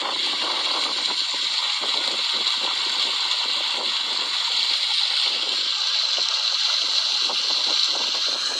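Spring water gushing steadily from a pipe and splashing onto stone, with the rush of water running into a plastic bottle.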